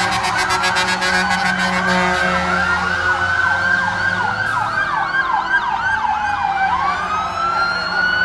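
Several fire engine sirens sounding at once, a mix of slow wails and fast yelps. A rapid pulsing tone runs through the first two seconds.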